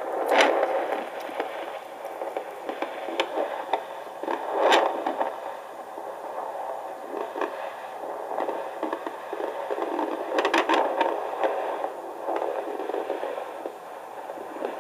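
Handheld fetal Doppler's speaker hissing with static, crackling and scraping as the probe is slid over the gelled belly to search for the fetal heartbeat. The louder scrapes come about half a second in, near five seconds and around ten to eleven seconds.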